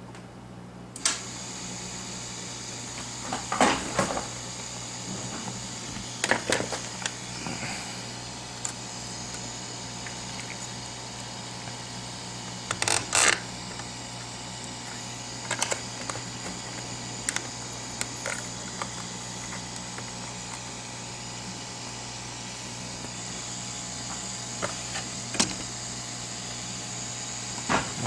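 Scattered clicks and knocks as an iPhone 6 Plus logic board is handled and fixed into metal clip holders on a wooden board. Under them runs a steady electrical hum and a hiss that comes in about a second in.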